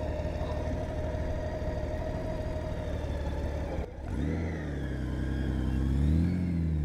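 Large touring motorcycle engine idling steadily. After a short break about four seconds in, the engine pulls away with a brief rise in pitch around six seconds in, as the bike starts rolling from a stop.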